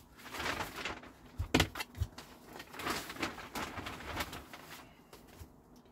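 Loose compost being scooped and handled: irregular dry rustling and scraping, with a couple of sharp knocks about a second and a half and two seconds in.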